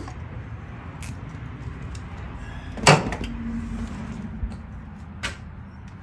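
A few sharp clicks and knocks of hand tools and parts being handled, with one louder clunk about three seconds in, over a low steady hum.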